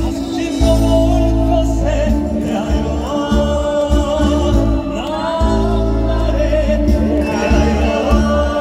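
A male vocalist sings a song live through a PA, over band accompaniment with strong sustained bass notes.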